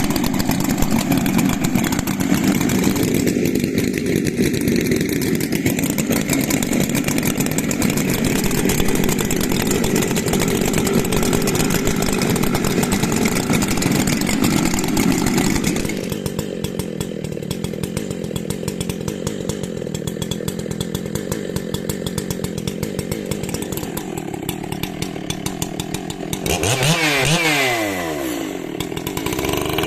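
A large 90cc-class professional two-stroke chainsaw running hard for about the first half, then on a lighter, quieter note. Near the end its pitch swings up and down as the throttle is worked.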